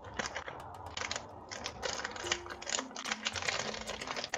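Crafting supplies being handled and put away: a clear plastic packet crinkling, with a quick irregular run of light clicks and ticks.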